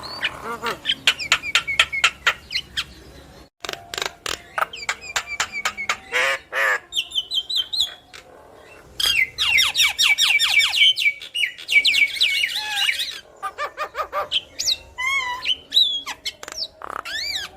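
Javan myna singing a long, varied chattering song of harsh squawks, rapid clicking runs and whistled notes. The song breaks off abruptly for a moment about three and a half seconds in, then carries on.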